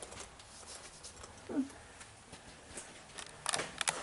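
Quiet room tone with a single short vocal sound falling in pitch about one and a half seconds in, then a quick run of sharp clicks near the end.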